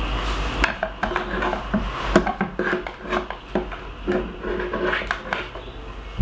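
A metal spoon scraping and clicking against the inside of a clear blender jug as thick, sticky date fudge mixture is scooped out, with irregular knocks as the spoon is tapped and pushed against the jug.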